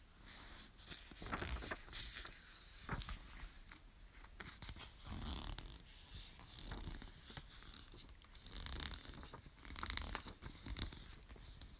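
Glossy book pages being turned and handled: irregular paper rustles and swishes with a few sharp little clicks.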